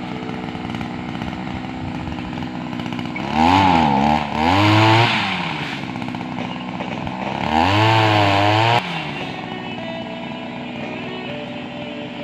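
Small two-stroke chainsaw-type pruning machine idling, revved up hard twice for a second or two each, the pitch climbing and dropping back to idle.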